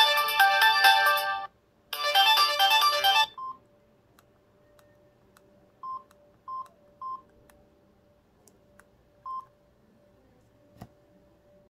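Samsung SGH-T349 polyphonic ringtone melody playing through the phone's small speaker, with a brief break about one and a half seconds in, then stopping about three seconds in. After it come five short single beeps spread over the next six seconds and a faint click near the end.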